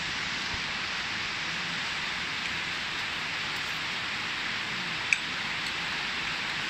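Steady rain falling on trees and foliage, an even hiss, with one short sharp tick about five seconds in.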